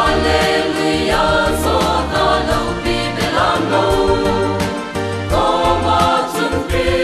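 Mixed choir of men's and women's voices singing a Christian choral song in harmony, over an instrumental backing with a bass line and a steady beat.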